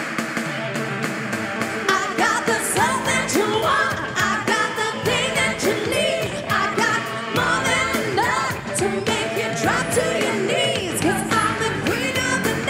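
A woman singing a pop song into a microphone over loud amplified music with a steady beat; her voice comes in about two seconds in.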